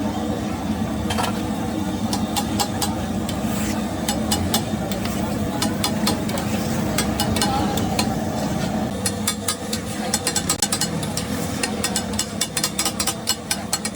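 Metal spatula clattering and tapping on a flat iron griddle, the strokes speeding up into rapid tapping about nine seconds in, over a steady rumble of street traffic.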